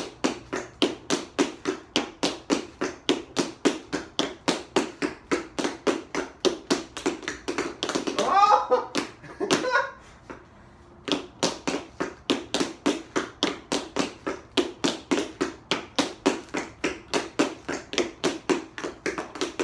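Two pairs of tap shoes tapping together in a steady rhythm of about four taps a second, breaking off for about a second midway and then picking up again. A brief vocal exclamation sounds just before the break.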